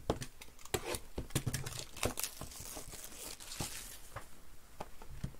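Plastic shrink-wrap crinkling and tearing as a sealed trading card box is unwrapped by hand, with a run of sharp crackles and rustles.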